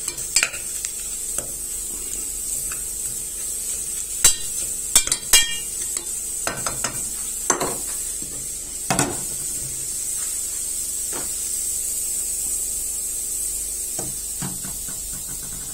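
Metal spoon and pot lid clinking and knocking against cookware in irregular clusters, over a steady frying sizzle of egusi (ground melon seed) in a pot on a gas burner.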